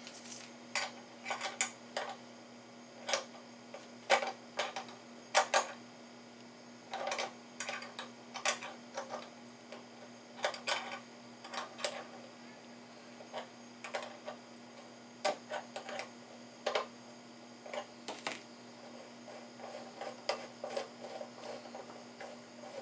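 Irregular metal clicks and clinks of a metal tortilla press being assembled by hand, its lever handle fitted and worked into place at the hinge. A faint steady hum runs underneath.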